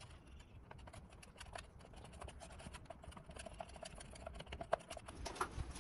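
Wooden stir stick scraping and clicking against the bottom and sides of a plastic mixing cup as it stirs dark tint into a liquid, a quick run of light scrapes and ticks with a couple of stronger knocks near the end.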